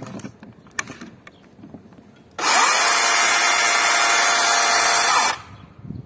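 DeWalt 54V cordless chainsaw with a 50 cm bar: a few clicks as it is handled, then the motor and chain spin up quickly and run steadily at full speed for about three seconds before winding down.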